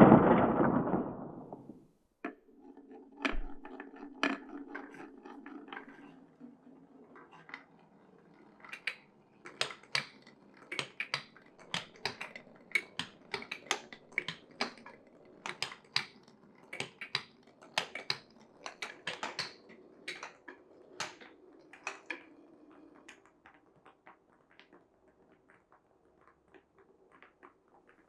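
Glass marbles rolling along a wooden marble run: a steady rolling rumble with many quick clacks as they knock against the wooden blocks and rails, busiest in the middle and thinning to scattered clicks near the end. A louder noisy sound dies away over the first two seconds.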